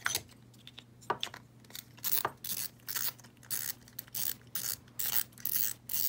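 Shimano Stradic FL spinning reel being put back together by hand: the spool is seated on the main shaft and the drag knob screwed down, giving a string of irregular small clicks and short metallic rasps.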